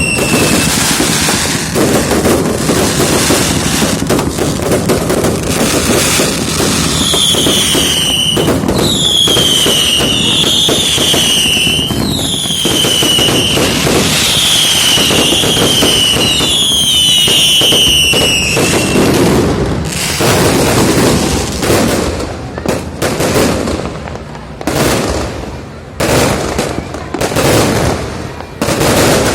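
New Year fireworks going off in a dense barrage of bangs and crackling. Repeated high whistles, each falling in pitch, sound through the middle. The barrage thins near the end to separate sharp bangs with short gaps.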